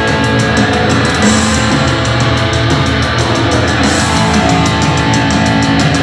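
Loud rock music with guitar and a steady cymbal beat, played through a portable Bluetooth speaker in a sound test.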